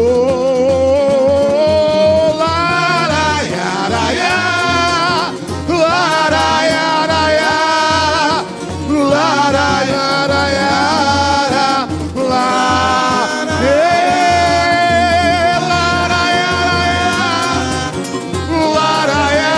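Samba-enredo: a singing voice holding long, wavering notes without words over the samba drum section, whose bass drums keep a steady beat.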